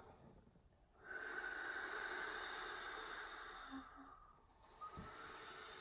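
Slow, deep breathing by two people breathing together: one long breath of about three and a half seconds with a faint whistle in it, then another starting near the end. This is paced breathing to get a labouring woman through a contraction.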